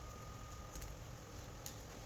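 Faint handling of small plastic parts: two soft clicks over a low steady hum, with a faint steady tone that fades out about halfway.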